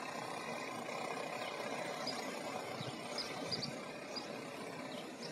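Outdoor ambience: a steady hum, with a small bird chirping briefly several times.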